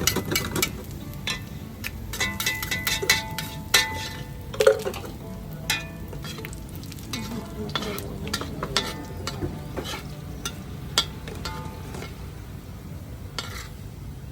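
Beef frying in a pan and being stirred: a steady sizzle under repeated ringing clinks and scrapes of a metal utensil against the pan, busiest in the first few seconds and sparser later.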